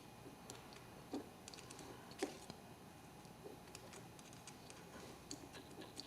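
Faint clicks and light taps of small metal lighter parts being handled and fitted into place by hand, with two slightly louder knocks about one and two seconds in.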